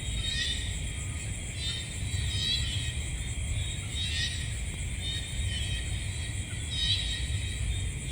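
Night-time nature ambience: a high chirping trill repeats every second or two over a steady high hiss and a constant low rumble.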